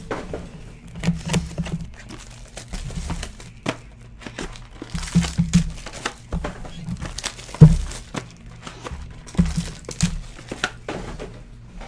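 Foil trading-card pack wrappers crinkling and small cardboard card boxes being handled on a desk, in irregular rustles and clicks, with one sharp knock about seven and a half seconds in.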